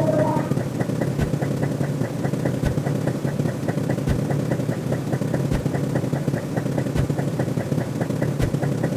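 Electronic sound-effect track: a steady drone with rapid light ticking over it and a sharp click about every one and a half seconds.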